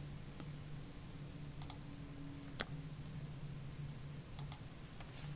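A few scattered, isolated clicks from a computer mouse and keyboard, over a faint steady low hum.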